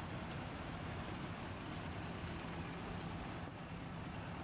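1954 Ford NAA tractor's four-cylinder gasoline engine running steadily as the tractor drives slowly past.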